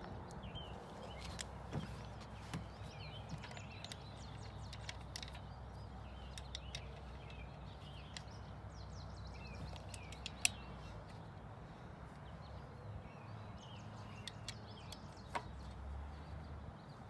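Birds chirping, over a low steady hum of outdoor background noise. A few light clicks and taps come from handling the umbrella's grip housing on the pole, with one sharper click about ten seconds in.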